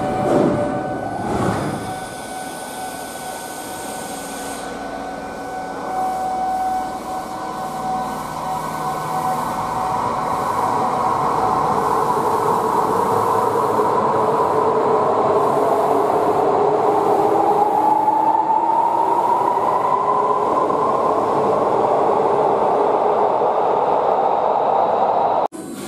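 Electric subway train pulling out of a platform with screen doors: two thuds of the doors shutting about a second in, then a rumble that builds as the train leaves, with its motor whine rising steadily in pitch as it picks up speed.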